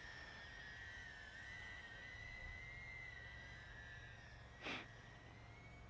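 Faint, steady high-pitched whine of a small 2.5-inch 4S FPV quadcopter's motors and propellers in flight, its pitch wavering slightly. A brief soft puff of noise comes about four and a half seconds in.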